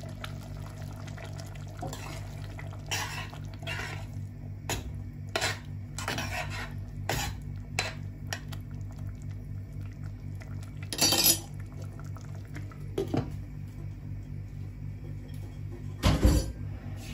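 Metal spoon stirring curry in a stainless steel pot, scraping and clinking against the sides. A glass lid is set down on the pot with a clatter near the end. A steady low hum runs underneath.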